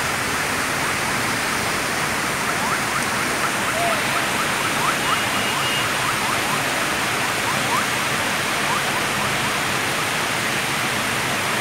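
Steady heavy rain, an even hiss. For a few seconds in the middle, a run of faint, short rising chirps sounds over it, several a second.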